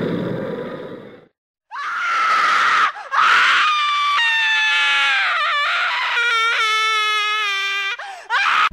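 A low rumble fades out, then a person screams: one short scream, then a long drawn-out scream that slowly falls in pitch and breaks off near the end.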